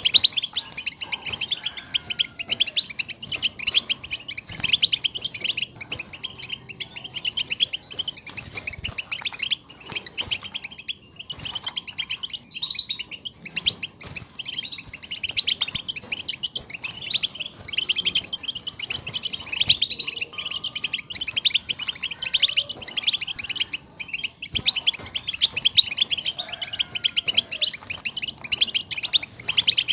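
European goldfinch twittering: a rapid, unbroken stream of high chirps and trills, the kind of call recording played to a silent caged goldfinch to get it singing.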